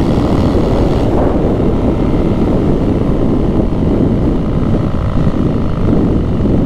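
2020 Harley-Davidson Street Bob's V-twin engine running steadily at riding speed, mixed with wind rush.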